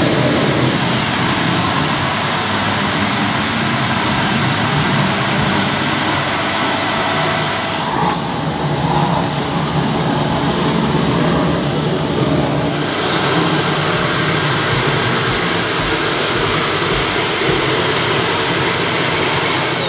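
Dyson Ball Animal Multifloor upright vacuum cleaner running at full suction through its hose and wand, a loud steady motor whine. Near the end it is switched off and the whine falls away as the motor spins down.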